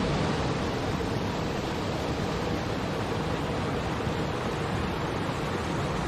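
Small waterfall cascading over boulders into a river: a steady rushing and splashing of water.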